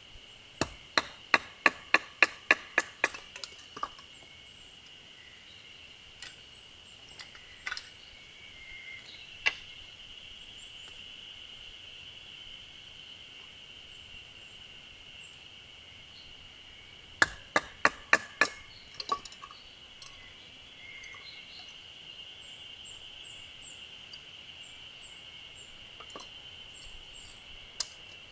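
Firewood being split by hand: a quick run of about ten sharp wooden knocks near the start, then a few single knocks, then another run of about six knocks past the middle, each run coming at roughly four knocks a second.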